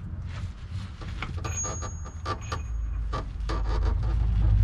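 Hand tools working bolts on the car's underside: a run of quick, irregular clicks and scrapes. A low rumble builds from about three seconds in.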